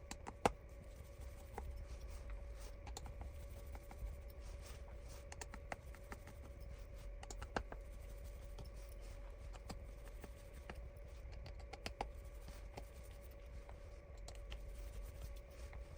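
Small screwdriver unscrewing the tiny midframe screws of a Samsung Galaxy S21: faint scattered clicks and scrapes of the metal tool on the screws and phone frame, a few sharper ticks among them, over a steady faint hum.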